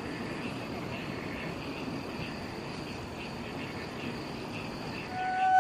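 Night-time insects chirping in a steady, repeating rhythm over a faint outdoor hiss. A held flute note comes in near the end.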